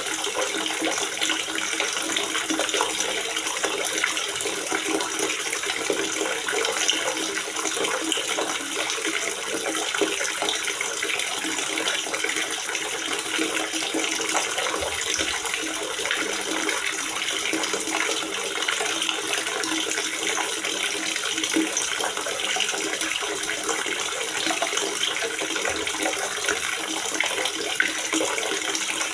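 Water gurgling and splashing steadily into a water reservoir, a continuous bubbling rush without pause.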